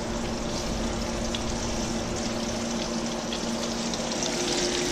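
Catfish fillets frying in a pot of hot vegetable oil: a steady sizzling hiss with faint scattered crackles, over a steady low hum.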